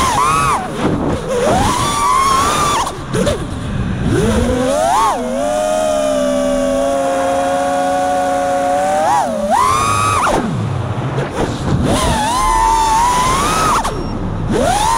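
5-inch FPV freestyle quadcopter's brushless motors and propellers whining, the pitch swooping up and down with sharp throttle changes. In the middle it holds a nearly steady pitch for a few seconds during a fast straight run, then swoops up and down again.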